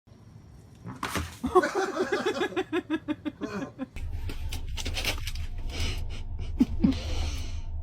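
A person laughing in a quick run of 'ha' sounds that fall in pitch, then a steady low rumble with scattered knocks and clicks from about halfway through.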